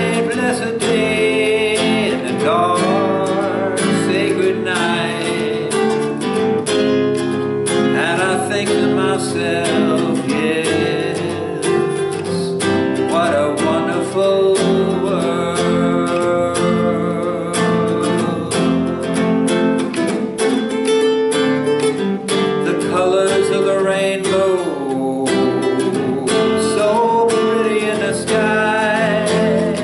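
Nylon-string classical guitar being played, with a man's voice singing along in places.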